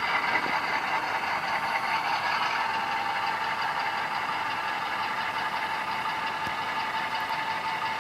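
Bachmann HO-scale Santa Fe F7A model locomotive's DCC sound decoder playing a steady diesel engine sound through its small onboard speaker, thin with little low end.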